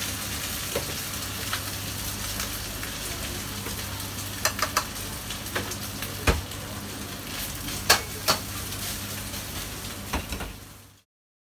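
Vegetables stir-frying in a wok over a high gas flame: a steady sizzle over a low hum, with a metal ladle clanking against the wok a few times in the middle. It cuts off suddenly near the end.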